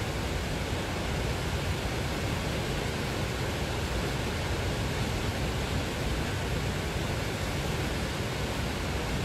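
Fast-flowing stream rushing over rocks in white-water rapids: a steady, even rush of water that does not change.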